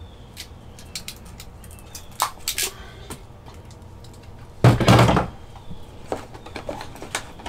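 Scattered clicks and light knocks of pliers and wires being worked at a recessed light's hole in a wooden shiplap ceiling. A louder rough noise lasting about half a second comes a little before the five-second mark.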